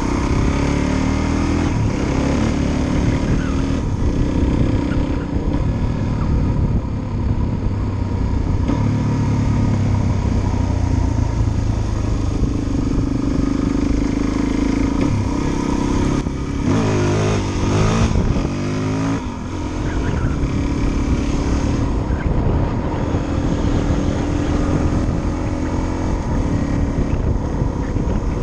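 Suzuki DR-Z400's single-cylinder four-stroke engine running under way as the bike is ridden, its revs rising and falling in steps through the gears. A little past halfway the revs swing quickly up and down for a couple of seconds.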